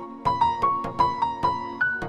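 Mobile ringtone melody in an electric-piano sound: quick struck notes in a repeating tune over a steady beat.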